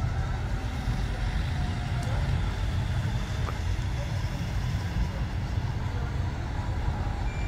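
Croydon Tramlink Bombardier CR4000 tram running slowly in to the platform: a steady low rumble with a hiss of running noise above it.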